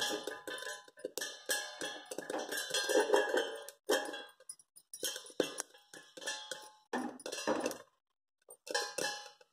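Sorghum kernels popping in a hot kadai, clattering and pinging against the steel plate lid as the pan is shaken, a rapid metallic 'thada thada' rattle with the steel ringing. The popping thins out in the second half and stops briefly near the end.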